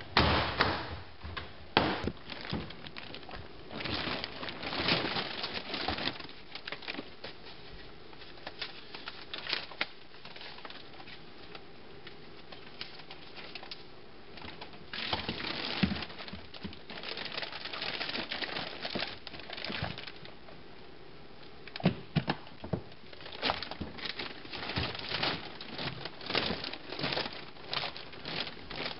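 Plastic film liner rustling and crinkling as it is spread out and smoothed by hand inside a plastic bulk container, in irregular bursts. Sharp clicks and knocks of the container's folding plastic walls near the start.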